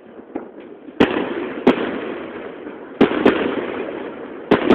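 Fireworks shells bursting overhead: five sharp bangs, coming in pairs about a second and a half apart, each followed by a lingering crackling hiss.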